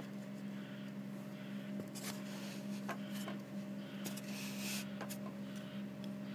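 Diesel engines of an asphalt paver and tipper lorry running steadily at idle, heard muffled through a closed window as a low hum. A few sharp clicks come around two and three seconds in, and a brief hiss about four seconds in.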